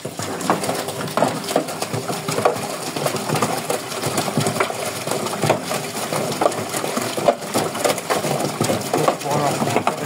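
Brandt 522 top-loading washing machine running a wash with its lid open: the drum turns and tumbles heavy towels and bathrobes through water. The sound is a steady splashing and sloshing with a dense clatter of small knocks.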